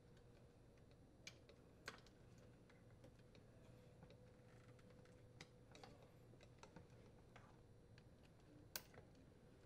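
Faint, scattered small plastic clicks and taps as wire connectors are pushed onto the terminals of a refrigerator's dispenser control assembly and its plastic panel is handled, the sharpest click near the end, over a low steady hum.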